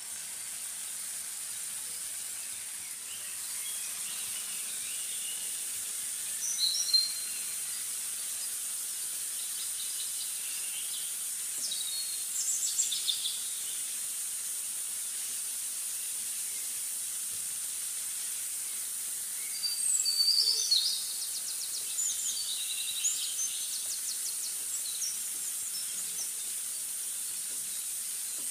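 Intermittent bird chirps in short clusters over a steady high hiss. The loudest chirps come about seven seconds in and again around twenty seconds in.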